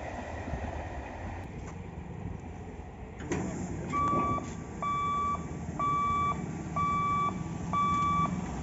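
Low rumble, then a click about three seconds in, followed by an electronic warning beeper sounding a steady mid-pitched beep of about half a second, repeating roughly once a second.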